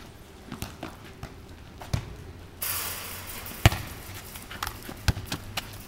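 Football being kicked and bounced on a tarmac court: three sharp thuds about a second and a half apart, the middle one the loudest, with lighter knocks between and a burst of hiss for about a second just before the loudest thud.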